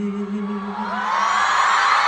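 A male voice holding a sung note over the hall speakers, ending about a second in, as an audience's screams and cheers swell up to become the loudest sound.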